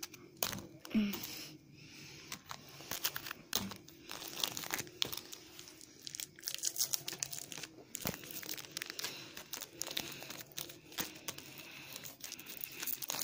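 A Ninjago trading-card pack wrapper being torn open and crinkled by hand: irregular crackling and tearing throughout.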